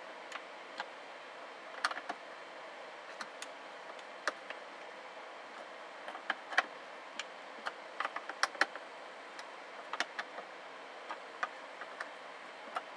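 Irregular small clicks and ticks of a screwdriver turning screws to fasten a speaker into the plastic ceiling panel of a loader cab.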